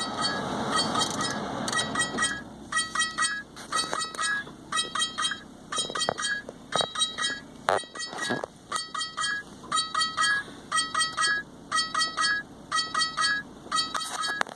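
Mini-0806 dash camera sounding its alarm: short runs of high electronic chirping beeps, repeating about once a second. The alarm is the sign of a failed internal lithium polymer battery that keeps the camera from shutting down properly.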